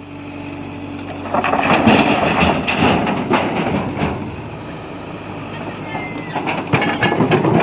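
JCB backhoe loader's diesel engine running steadily, then loud clattering and scraping of stone against steel as the loader works stone into the tipper. The clatter starts about a second in, eases midway, and returns near the end, with a brief high squeal around six seconds.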